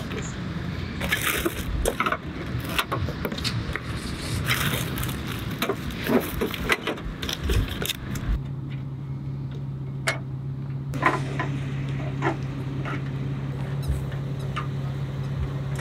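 Handling noise from unpacking a cardboard-boxed EZ Trunk storage unit: packing paper rustling, cardboard and plastic panels scraping, and clicks and knocks as the parts are moved. About eight seconds in, a steady low hum starts under further clicks.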